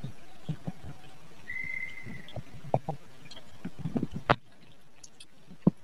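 Small scattered taps and clicks of fingers and bowls as food is eaten by hand from plastic and steel bowls. A short high steady whistle comes about a second and a half in, and a single sharp click past the middle is the loudest sound.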